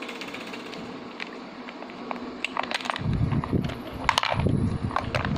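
Toy vending machine being worked by hand: scattered small plastic clicks and knocks. About three seconds in, a low rumbling handling noise starts up.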